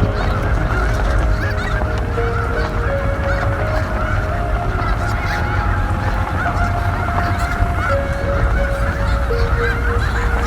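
A huge flock of geese honking in a dense, unbroken chorus of overlapping calls, with a steady low rumble of wind on the microphone underneath.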